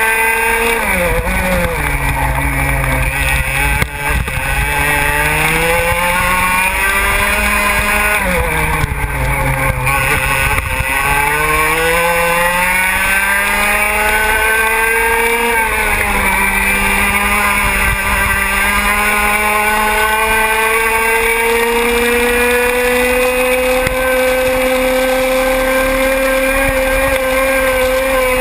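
125 cc two-stroke racing kart engine at full throttle on a lap, heard onboard. Its pitch drops sharply three times as the kart brakes into corners, about a second in, around 8 s and around 16 s, and climbs back up each time, with one long, slow climb through the final stretch.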